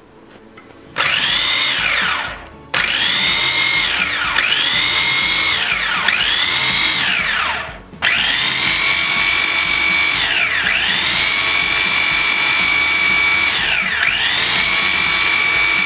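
Kenwood mini chopper's electric motor whining at high speed, run in pulses: its pitch sags and climbs back several times, and it stops briefly twice. It is blending egg whites, garlic and oil while more oil is poured in, as the mayonnaise thickens.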